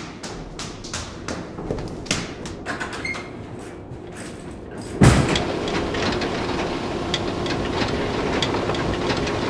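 A run of sharp clicks, a few a second, that thins out. About five seconds in, a sudden heavy thud cuts in to a steady rattling rumble with scattered ticks.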